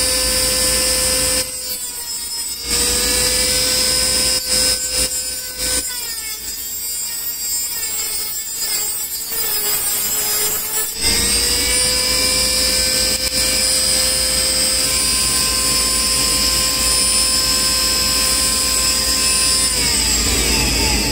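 Dremel rotary tool with a cut-off wheel cutting through a metal transmission line: a steady high whine that twice sags in pitch and level as the wheel bites into the tube, then runs free and winds down near the end.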